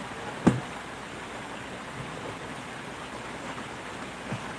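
Steady rushing background hiss, with one sharp short knock about half a second in. Near the end a man drinks from a cup, with faint small sounds.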